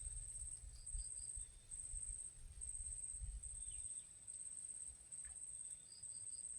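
Insects chirping in a high, steady trill that comes in repeated bursts under a second long, with two short runs of three quick chirps, over a low rumble.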